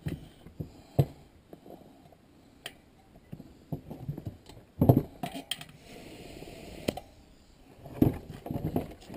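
Metal clinks and knocks from a dirt bike wheel and tyre being handled on a wooden table, with one loud knock about five seconds in. Just after it comes about a second of steady hiss, air from the inflating hose at the tyre valve.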